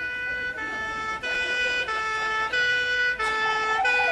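Two-tone police car siren alternating between a higher and a lower note, each held about two-thirds of a second.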